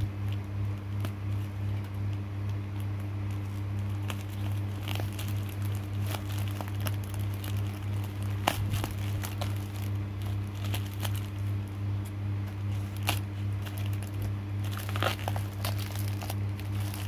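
Black plastic mailer bag and packing tape crinkling and tearing as a parcel is picked and pulled open by hand, in scattered crackles with a few sharper snaps about halfway and near the end. A steady low hum sits under it.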